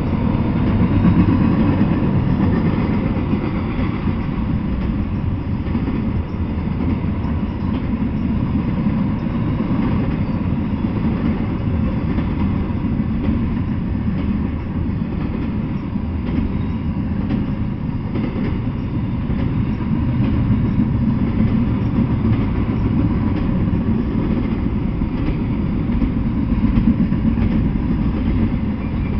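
Double-stack intermodal container train rolling past: a steady rumble of the well cars' wheels on the rails, with faint clicks scattered through it.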